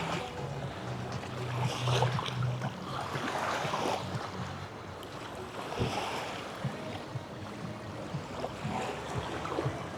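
Small sea waves washing and sloshing at the shore, rising and falling in swells, with wind rumbling on the microphone. A low steady hum sounds for the first few seconds and then stops.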